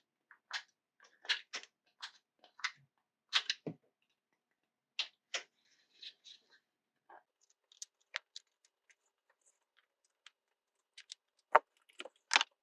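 Sprue cutters snipping leftover supports off a 3D-printed model wagon: a dozen or so irregular sharp snips and clicks, with the two loudest near the end.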